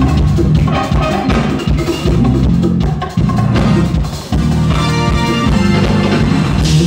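Live jazz-fusion band playing, with electric bass and drums strong in the mix alongside electric guitar, keyboards and hand percussion.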